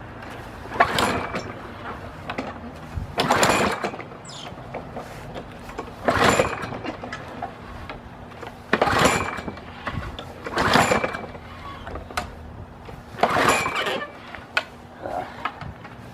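Six separate pulls on the recoil starter of a Yard Machines front-wheel-drive push mower, each a short burst of the cord and the engine turning over. The engine does not catch: a hard-starting small engine on a cold start after heavy priming.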